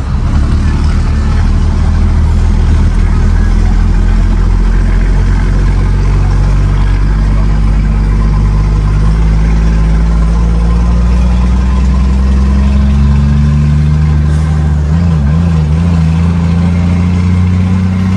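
Scania 124 truck's inline-six diesel with a straight-through exhaust, heard from inside the cab, running steadily under way; its pitch climbs slowly in the second half.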